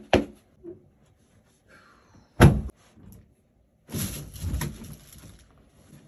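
Thuds, clunks and rustling on a padded chiropractic table as a patient is repositioned and adjusted: a short crack at the very start, a loud single thud about two and a half seconds in, then about a second of rustling with clunks near the end.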